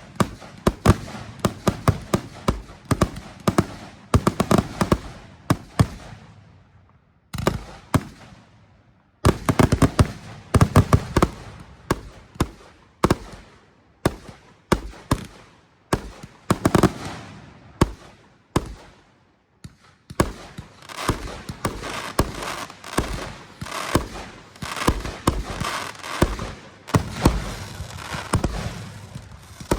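Consumer fireworks going off in rapid volleys of sharp bangs and crackles, with two short lulls, one about a quarter of the way in and one about two-thirds in, and denser crackling near the end.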